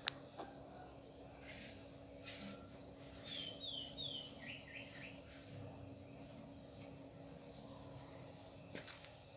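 Quiet background: a steady high-pitched insect trill, with a few short descending chirps near the middle and one sharp click at the very start.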